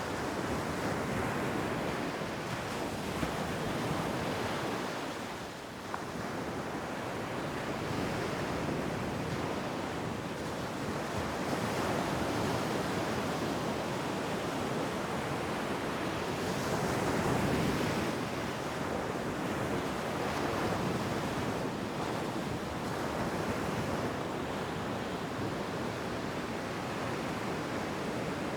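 Ocean surf washing onto a beach, a continuous rushing wash that swells and eases as waves come in. It dips briefly about a fifth of the way through and surges loudest around two-thirds of the way in.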